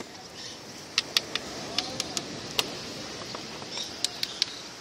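Hard clam and oyster shells clicking against each other as they are picked out of a heap and handled: a string of sharp, irregular clicks, three of them in quick succession near the end, over a steady hiss.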